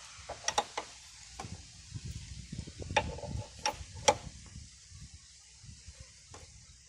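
Sharp clicks and clinks of hand tools working on a motorcycle disc brake caliper as its 12 mm mounting bolts are tightened: about eight irregular knocks, the loudest a little after halfway.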